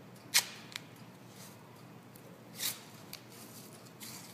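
White athletic tape being pulled off the roll and torn by hand: a sharp short rip about half a second in, and a longer rip a little after halfway.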